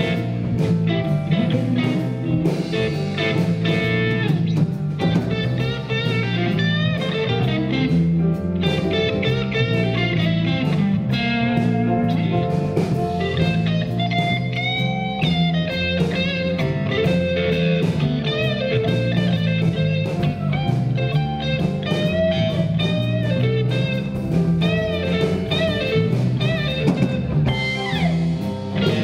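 Live blues band playing an instrumental break, with an electric guitar taking the lead over bass and drums.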